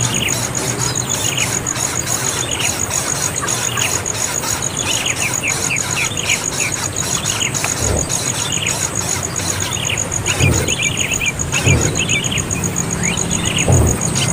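A young bird chirping over and over, short falling calls several times a second, over a steady, very high, fast-pulsing trill. A few low thumps come in the second half.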